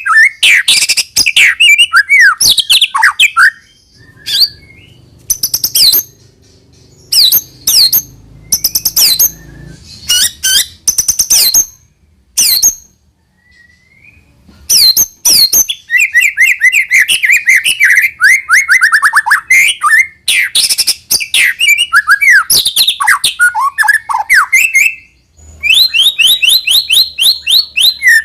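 White-rumped shama (murai batu) singing a loud, varied song of sharp whistled notes and chips broken by short pauses. About halfway through it runs into a long rapid trill, and another rapid trill comes near the end.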